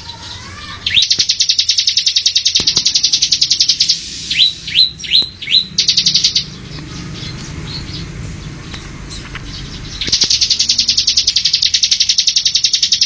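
Songbird calling: a fast, even chattering trill, then four short down-slurred whistles, then the fast trill again near the end.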